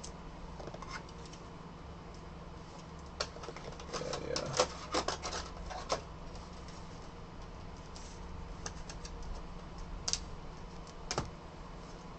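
Trading cards in plastic sleeves being handled and set down on a tabletop: soft plastic rubbing, with a cluster of light clicks and taps a few seconds in and two more taps near the end.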